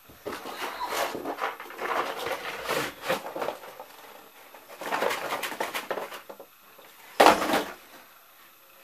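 Someone rummaging through a pile of toys and boxes: bursts of rustling and plastic clatter, with a short, louder knock about seven seconds in.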